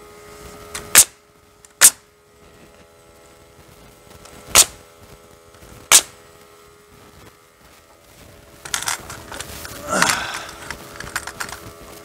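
Pneumatic nail gun firing four single nails into a wooden furring strip, each shot a sharp crack: two about a second apart, then two more about a second and a half apart. Near the end come a few seconds of scraping and knocking over a faint steady hum.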